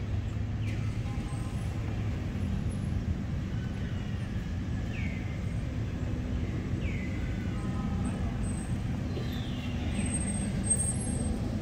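Steady low background rumble like distant road traffic, with a few short falling chirps spread through it.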